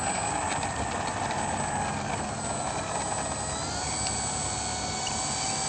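Electric motor and propeller of a ParkZone VisionAire RC plane running on the ground while it taxis, a steady whine whose pitch rises about three and a half seconds in as the throttle is opened.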